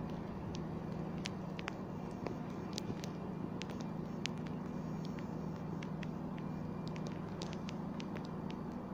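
Steady low hum of an empty underground railway platform, with scattered sharp clicks and ticks at irregular moments throughout.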